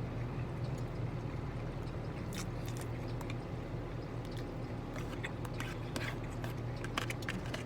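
A person chewing and biting food, with scattered short clicks and crackles. Under it runs a steady low hum.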